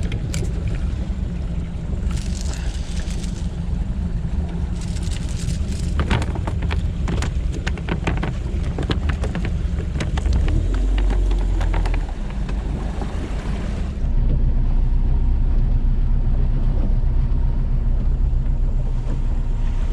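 Steady low rumble of a trolling boat's engine with wind noise on the microphone. A flurry of sharp knocks and clatter comes in the middle, and a little past halfway the rumble turns suddenly louder and duller.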